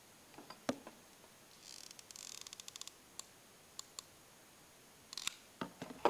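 Small clicks and taps from hands handling a pencil and its craft-foam petals. There is a quick run of fine clicks about two seconds in, and a few sharper knocks near the end.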